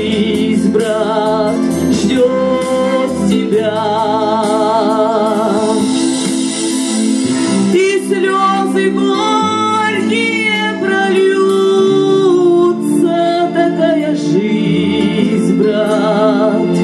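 A woman singing into a microphone, holding long notes with wide vibrato, over acoustic guitar accompaniment.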